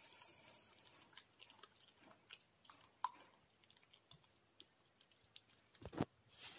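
Faint wet squishing and clicking of hands mixing raw chicken pieces in an egg, cornstarch and flour marinade in a bowl, with a louder dull knock near the end.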